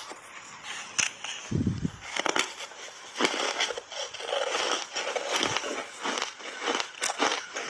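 Big bites of crunchy reshaped foam ice thickly coated in matcha powder being bitten and chewed: a few sharp crunches in the first seconds, then a dense run of crunching and crackling from about three seconds on.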